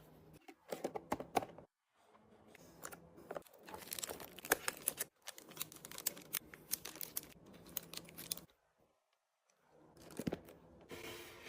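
Plastic packaging being torn open and crinkled, with light clicks and taps, in several short bursts separated by brief pauses; typical of snacks and drinks being unwrapped and stacked in a mini-fridge restock.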